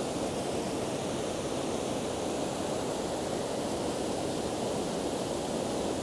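River rapids: white water rushing over a rock ledge, a steady, even rush.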